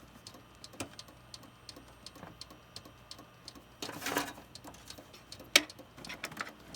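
Irregular clicking from inside a running Compaq desktop computer, the fault noise being hunted down. A brief louder rustle comes about four seconds in, and a sharp click a second and a half later.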